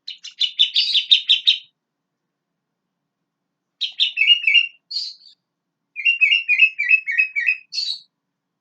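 Sooty-headed bulbul (kutilang) singing in three bursts: a quick run of about a dozen chattering notes, then after a pause two shorter phrases of fast, clear warbled notes.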